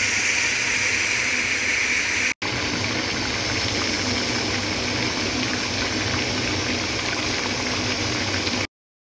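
Diced beef liver simmering and sizzling in its own juices in a pot, a steady bubbling hiss that drops out briefly about two and a half seconds in and again near the end.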